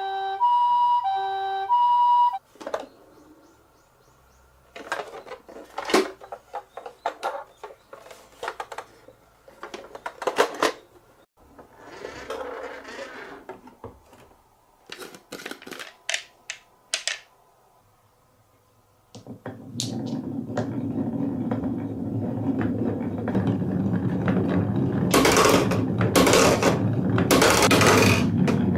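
A toy vehicle's electronic siren plays a stepped two-tone pattern for about two seconds. After it come scattered clicks and clacks of marbles rolling and striking a HABA wooden marble run. From about two-thirds of the way in, this turns into a dense, continuous rattling clatter of many marbles running down the wooden track, growing louder.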